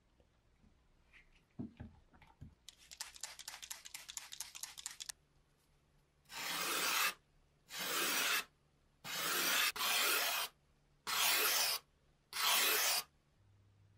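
Hand-worked rubbing on a workpiece: a quick rasping run of rapid scratches, then six separate rough rubbing strokes, each under a second long.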